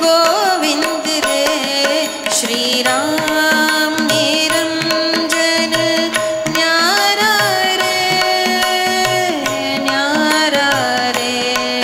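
Devotional bhajan music: a melody with gliding ornaments over a steady drone, with a drum keeping time.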